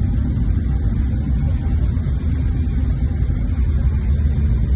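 Steady low roar of a jet airliner's cabin in flight, the engine and air noise heard from inside the cabin.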